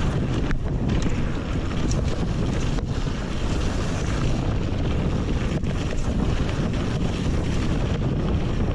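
Heavy, steady wind noise buffeting the microphone, strongest in the low rumble, with a few brief dropouts.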